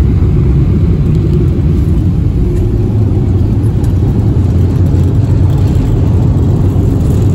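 Loud, steady low rumble of a running machine or vehicle, with no clear changes.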